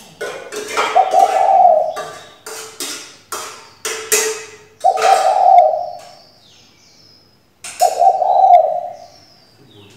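Female spotted dove cooing: three loud, drawn-out coos at about one, five and eight seconds in, with lower steady notes between them. A quick series of sharp clicks or knocks runs through the first half.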